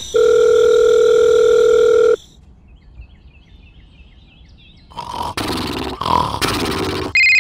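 A string of edited sound effects: a loud, steady electronic beep tone for about two seconds, then a quieter stretch with faint short chirps, then about two seconds of harsh, noisy sound, and a high electronic beep starting near the end.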